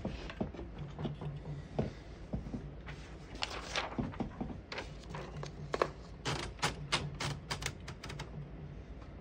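Irregular mechanical clicks and clacks from a 1967 Royal Lark portable typewriter being worked by hand, with a quicker run of clacks past the middle.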